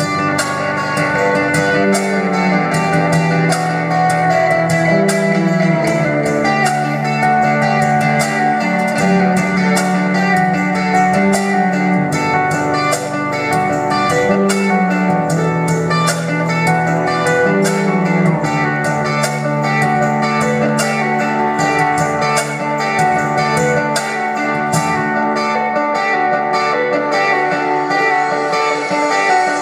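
Live band playing an instrumental passage with no singing: acoustic guitar over cello, keyboard and drums, the low notes moving every couple of seconds under a steady light beat.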